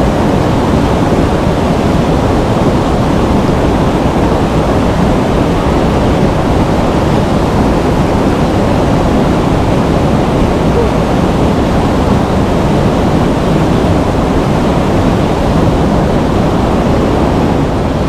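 Small mountain waterfall pouring into a rocky pool: a loud, steady rush of falling water, heaviest in the low end.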